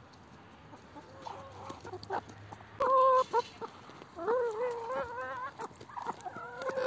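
Brown hens clucking and calling while they peck at bread. The calls begin about three seconds in, the loudest first, then come as a run of wavering calls.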